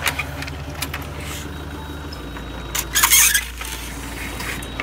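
An engine running steadily, its note shifting about two seconds in and stopping shortly before the end, with a short loud squeal about three seconds in.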